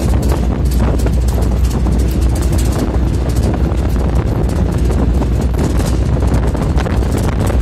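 Wind buffeting the microphone in the open cargo bed of a moving Mahindra Bolero pickup, over the truck's steady low road and engine rumble.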